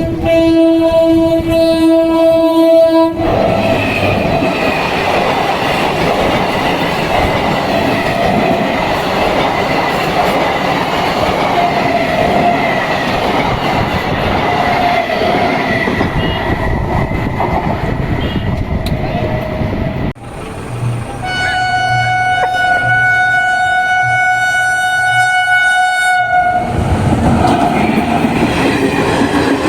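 Express train passing at speed: its horn sounds for the first three seconds, then the wheels and coaches rumble and clatter by for many seconds. After a brief drop about twenty seconds in, a horn of a different pitch is held for about five seconds, and the passing train's clatter returns.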